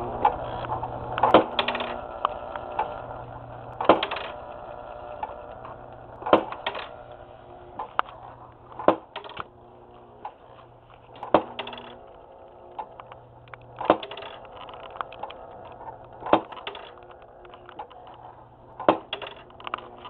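Wooden drive mechanism of a model "knock and drop" sawmill running, giving a sharp wooden knock about every two and a half seconds with lighter clicks and rattles in between, over a steady low hum.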